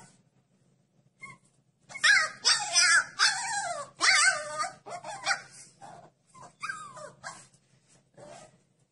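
Husky puppy howling in a string of wavering cries that bend up and down in pitch, loudest from about two to five seconds in, followed by a few shorter, fainter cries near the end.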